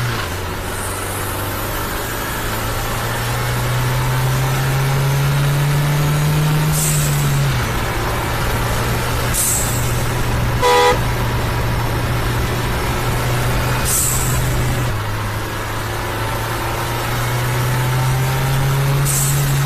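Renault Duster's 1.3-litre four-cylinder turbo petrol engine, held at raised revs that step up and back down several times, with a turbo whistle gliding over the engine note and a short hiss each time the revs drop. A car horn toots once, briefly, about eleven seconds in.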